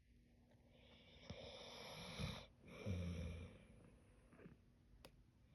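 A dog snoring softly in its sleep: a long breath, then a short low snore about three seconds in.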